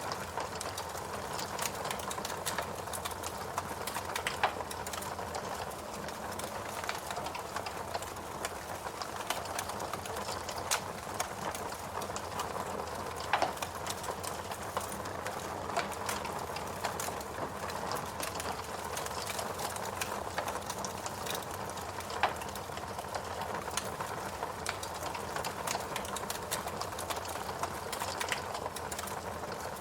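Wood fire burning in a fireplace: a steady hiss and rustle of flames with frequent small crackles and a few louder pops.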